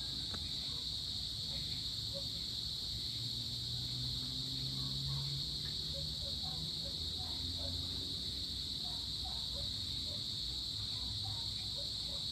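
Evening insect chorus: a steady, unbroken high-pitched trill, with scattered short chirps and a faint low hum underneath.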